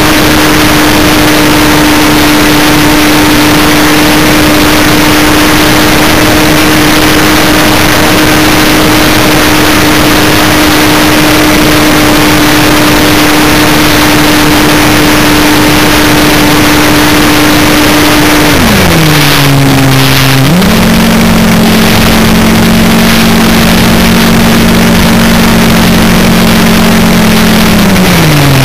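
Electric motor and propeller of an Electrifly SU-31 RC plane, heard from a camera on board: a steady high whine over heavy wind rush. About two-thirds in the pitch drops sharply as the throttle is cut, then steps back up to a lower steady pitch, and drops again near the end as the plane comes in low over the runway.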